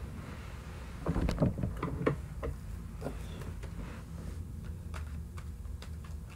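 Handling noises: a cluster of knocks and rustles about a second in, then scattered light clicks.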